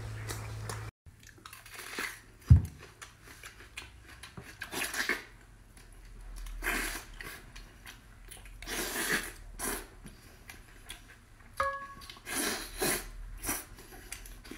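Close-miked eating sounds: chewing, sucking and lip-smacking while gnawing meat off braised pork bones, in short irregular bursts. One sharp low thump about two and a half seconds in is the loudest sound.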